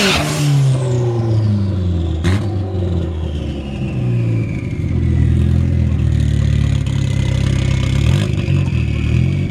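Turbo-swapped 2007 Chevrolet Cobalt SS four-cylinder engine coming off a hard rev. The engine note drops and then runs steady at low revs, while a high whine falls slowly in pitch over several seconds. A sharp click comes about two seconds in.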